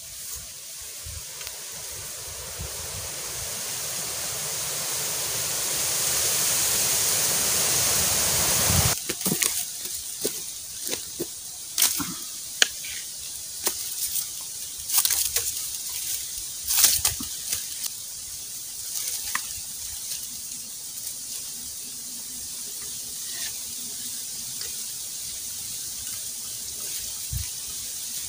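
A rushing, hissing noise swells for about nine seconds and cuts off suddenly. Then comes a run of sharp cracks and snaps of dry sticks and leaf litter being handled at a campfire, thinning out after a few seconds.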